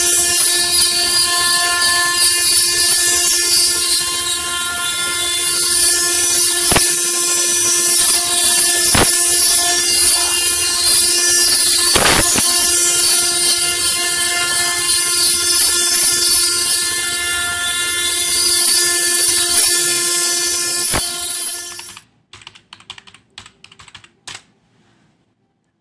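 Stone CNC router spindle running steadily under load while carving a rotary stone column, a constant multi-toned whine with hiss from the coolant spray and a few sharp clicks. It cuts off abruptly about 22 seconds in, followed by a few faint clicks of typing on a keyboard.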